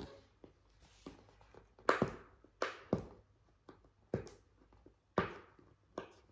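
Hands working at a cardboard drone box, picking at its opening tab: a string of sharp taps, scrapes and knocks, the loudest about two seconds in and about five seconds in.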